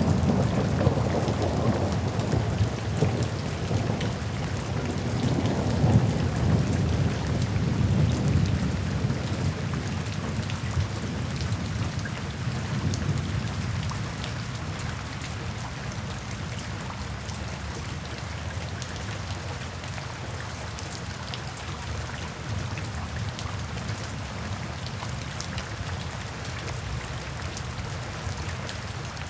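Steady rain drumming on a tin roof, with a long low roll of thunder over the first half that fades away, leaving the rain alone.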